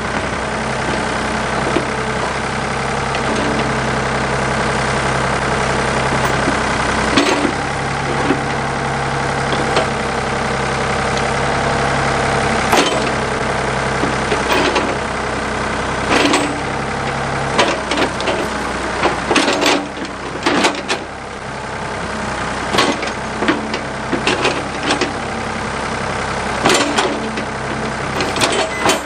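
Backhoe engine running steadily under hydraulic load while the machine digs out tree stumps, its note shifting as the controls are worked. Repeated sharp clanks and knocks come from the bucket and linkage, most of them in the second half.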